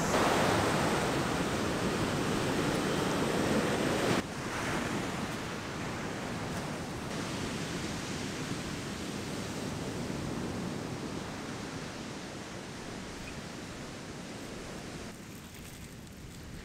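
Ocean surf breaking on a sandy beach: a steady wash of waves. It is louder at first and drops suddenly about four seconds in, then carries on softer.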